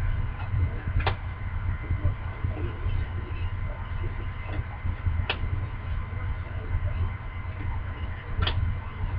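Trading cards being handled and slid through by hand, with three sharp card clicks, over a steady low hum.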